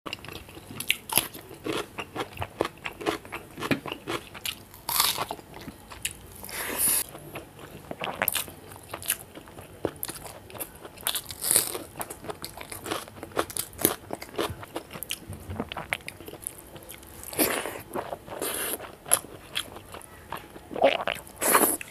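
A man eating rice and fish curry by hand, with crunchy bites of raw cucumber: irregular crunches, chewing and sharp mouth clicks and smacks.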